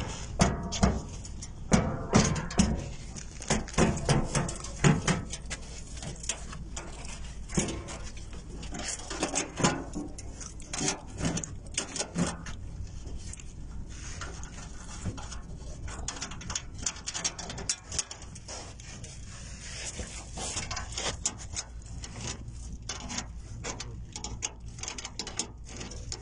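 Irregular clicks, knocks and rustling of close handling noise, thickest and loudest in the first five seconds, over a low steady hum.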